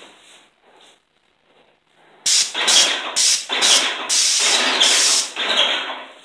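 Handheld paint spray gun hissing in a run of about six short bursts, the last ones longer, as the trigger is pulled and released.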